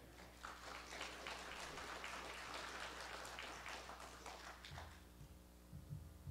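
Audience clapping faintly for about four seconds, then dying away; a few low thumps start near the end.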